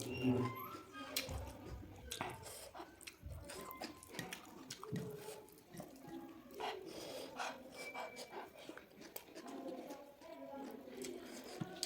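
Chewing and lip-smacking while eating chicken: irregular wet clicks and smacks with soft mouth sounds in between.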